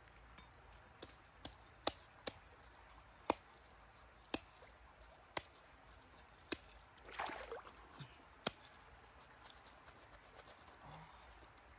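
A machete blade striking stones and gravel on a stream bank: sharp clicks about once a second, then one longer, noisier scrape about seven seconds in, over a faint trickle of water.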